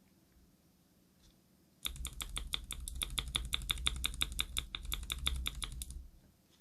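Fast typing on a Cherry MX Board 3.0S mechanical keyboard with Cherry MX Red linear switches and ABS keycaps: a quick run of keystrokes, about eight a second, starting about two seconds in and stopping shortly before the end.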